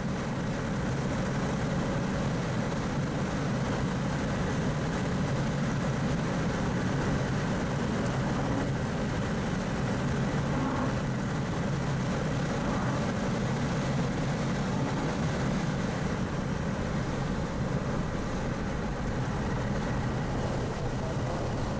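Mazda RX-8's two-rotor rotary engine running steadily while the car is driven at speed on a race track, heard from inside the cabin.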